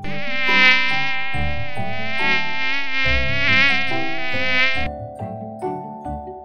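Bee buzzing in flight, its drone wavering in pitch, over light background music. The buzz stops about five seconds in, leaving only the music.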